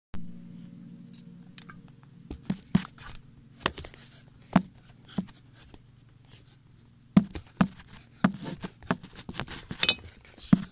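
Irregular light taps and clicks, scattered across several seconds and thickest in the second half, over a low steady hum.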